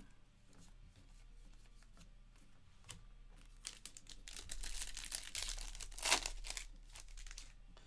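Foil wrapper of a trading-card pack being torn open and crinkled by hand. A few light clicks come first, then the crinkling and tearing starts about halfway through and is loudest near the end.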